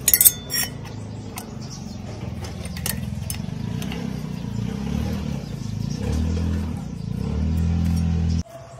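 Metal clinks of a hex key in the cylinder-head bolts about a quarter second in, over a low engine drone from some other motor that changes pitch a couple of times and cuts off abruptly near the end.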